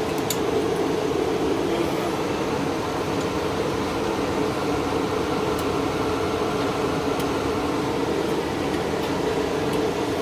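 Steady mechanical whirring hum of a running machine, like a cooling fan, with a few faint clicks.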